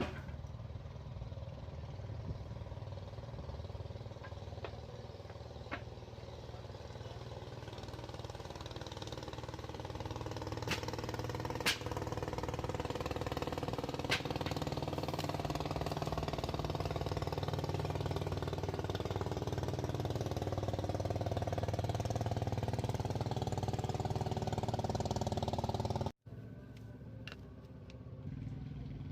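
A small engine running steadily, getting louder through the middle, with a few sharp clicks. It cuts off abruptly near the end, and a quieter engine sound follows.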